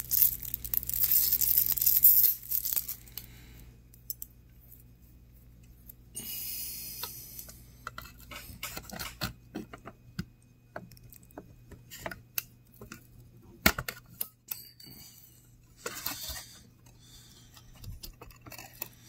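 Rustling handling noise, then scattered small metallic clicks and ticks as watch tweezers work the retaining clip on a brushless fan motor's shaft, with one sharper click near the middle.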